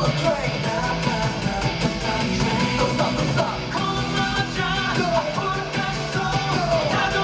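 Live K-pop concert music: a male voice sings into a microphone over a full, steady band track, picked up from the arena floor.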